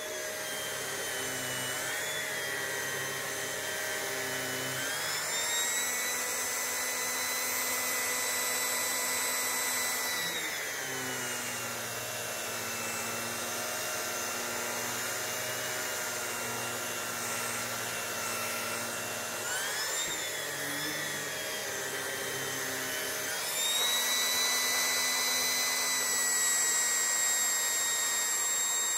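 Dyson DC05 vacuum cleaner running with a Mini Turbo Head fitted, its air-driven brush bar spinning fast. The steady whine steps up in pitch about five seconds in, drops back near the middle, and rises again, a little louder, in the last few seconds.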